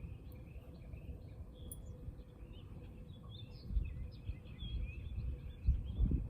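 Birds chirping and singing continuously, over a steady low rumbling noise, with a couple of louder low thumps about four seconds in and near the end.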